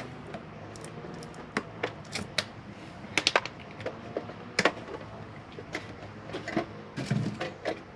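Screwdriver taking the small screws out of a CCTV DVR's case, then the case being handled: a string of irregular light clicks and taps.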